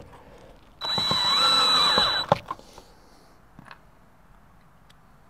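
DeWalt cordless drill driving a pocket-hole screw into a plywood frame joint in one run of about a second and a half, with a steady high whine, followed by a couple of sharp clicks.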